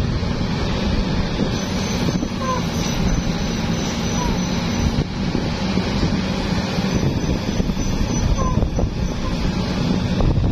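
Heavy road vehicle's engine running with a steady low rumble, a few faint short chirps sounding over it.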